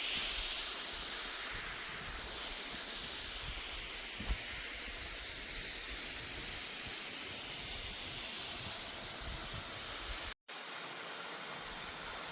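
Steady rushing hiss of Calf Creek's water flowing over rock, with a single short knock about four seconds in. The sound cuts out for an instant near the end.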